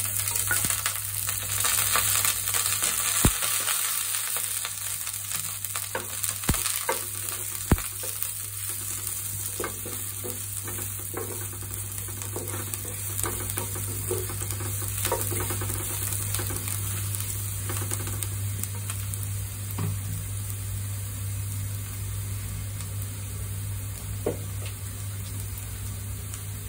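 Minced garlic sizzling steadily in hot oil in a nonstick pan, with a wooden spatula stirring and now and then clicking against the pan.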